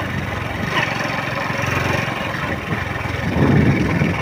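Steady engine and road noise of a moving vehicle, with a low rumble that swells near the end.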